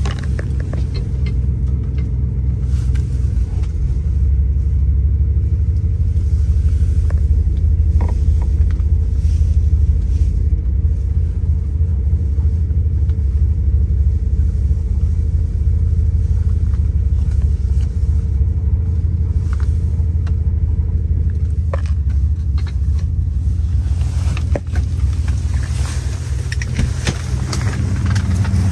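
Chevrolet Caprice's 350 small-block V8 with throttle-body injection idling steadily, a low rumble, minutes after a cold start in sub-zero air.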